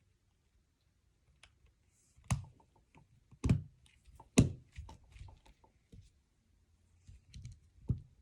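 Plastic Lego pieces clicking and knocking as they are picked up and pressed together, with four sharper clicks among smaller ones after a quiet start.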